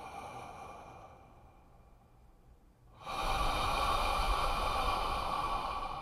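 Slow, heavy human breathing, as a horror sound effect. One breath trails off over the first couple of seconds. After a short pause, a louder, deeper breath starts abruptly about three seconds in and fades near the end.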